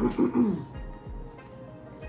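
Soft background music with steady held tones, opened by a short voice sound falling in pitch in the first half second.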